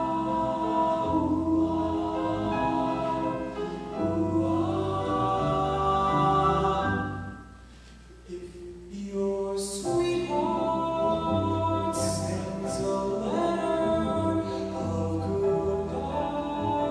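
A man singing a slow ballad into a microphone over instrumental accompaniment, holding long notes. The sound drops to a quiet passage about seven seconds in, then the singing returns.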